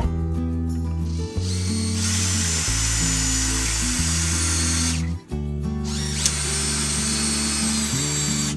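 Power drill driving long structural screws to toe-screw a 6x6 timber post, running in two long spells with a brief stop a little past the middle. Background music plays underneath.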